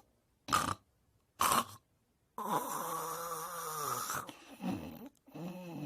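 Snoring: two short snores about half a second and a second and a half in, then a long snore with a pitched, wavering tone that slowly falls, followed by shorter pitched snores near the end.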